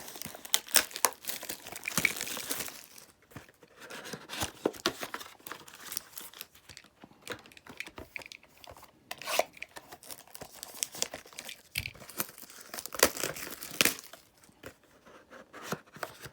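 Plastic wrapping on a trading-card box being torn open and crinkled by hand, in irregular crackling bursts with sharp ticks.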